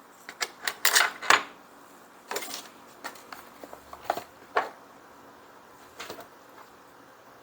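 Clicks and knocks of small hard parts and tools being handled while mounting a carburetor on a leaf blower. They come in a quick cluster in the first second and a half, then singly every second or so.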